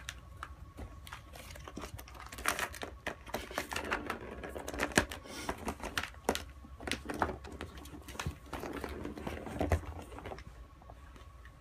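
A cat batting and rolling against a plastic ring track toy: a run of irregular clicks, knocks and rattles from the plastic, busiest through the middle and thinning out near the end.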